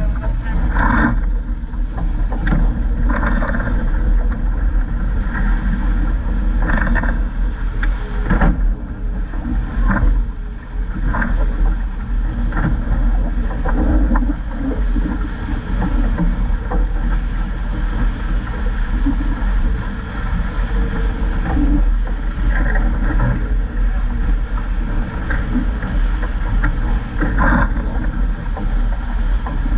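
Wind buffeting the microphone over water rushing past the hull of a VJ12 sailing dinghy running fast under spinnaker, with frequent splashes and slaps of chop against the bow.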